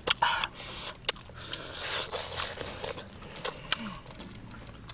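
Close-up eating sounds: sharp lip smacks, clicks and chewing as cooked chicken is eaten by hand, loudest in the first second. A brief high chirp comes near the end.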